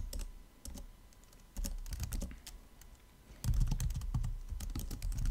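Computer keyboard being typed on, keys clicking in short runs with brief pauses, the longest run in the second half.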